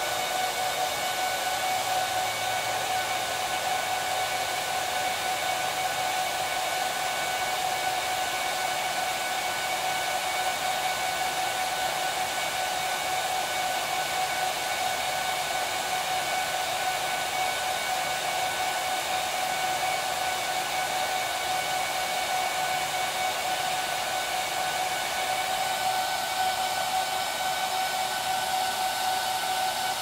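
Cooling fans of an HPE ProLiant DL380p Gen8 rack server running fast during its power-on self-test: a steady rushing of air with a constant whine. This is the slow boot-up after a RAM change, which the owner puts down to the memory being repopulated.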